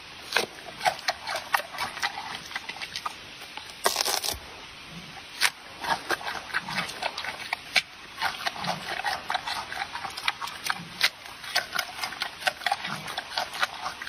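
Wet munching and smacking of papaya being chewed: a fast, irregular run of small clicks and squelches. A brief louder burst of noise comes about four seconds in.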